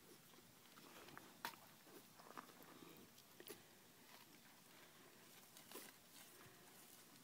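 Near silence with faint, scattered wet smacks and clicks of cows licking a newborn calf clean.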